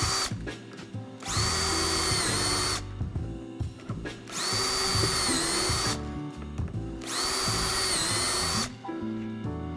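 Cordless drill spinning a self-centering drill bit through a shelf-pin template, boring shelf-pin holes one after another: three separate runs of about two seconds each with short pauses between, plus the end of a run at the very start. The whine dips briefly in pitch near the end of each run.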